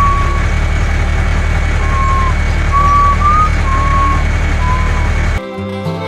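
Steady low engine rumble of a truck-like vehicle, with a run of short high whistle-like tones over it. It cuts off abruptly about five seconds in, and guitar music takes over.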